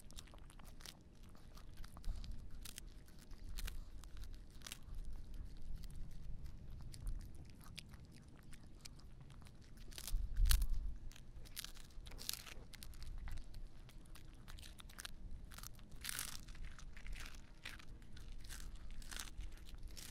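Small mixed-breed dog biting and chewing a freeze-dried pond smelt treat held up to the microphone: a long run of crisp crunches, thicker and louder in the second half. Wind rumbles low on the microphone now and then, strongest about halfway through.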